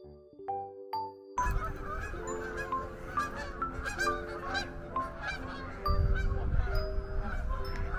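A flock of geese honking, a dense jumble of calls that breaks in about a second and a half in over light background music; a low rumble joins near the end.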